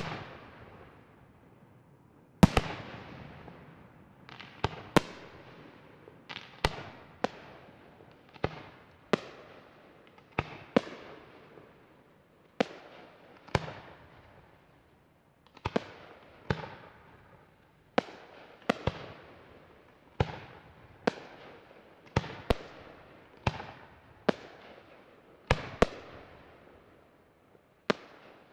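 Aerial firework shells bursting one after another, a sharp bang about once a second, each trailing off in an echo.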